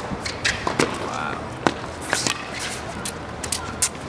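Tennis rally on a hard court: sharp pops of the ball struck by rackets and bouncing on the court, several times, a fraction of a second to about a second apart, over a murmur of crowd chatter.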